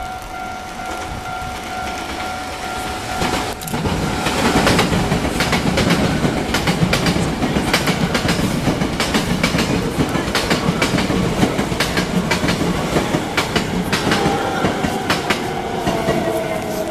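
A Hankyu electric train pulls into a station. From about four seconds in, its wheels clatter loudly over the rail joints in many quick clicks. Near the end a whine falls in pitch as the train slows to a stop.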